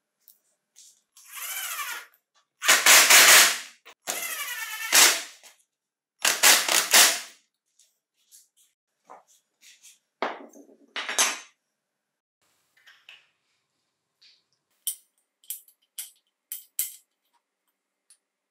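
Small metal and plastic chainsaw parts being picked up, slid and set down on a wooden workbench: a scrape, then several loud clatters, then a few light clicks near the end.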